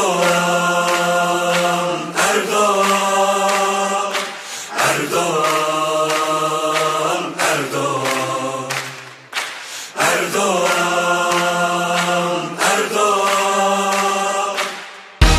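Choir-like chanted singing from a Turkish election campaign song, in long held notes in repeated phrases of about two and a half seconds, with almost no bass or drums beneath. The full band with drums crashes back in just at the end.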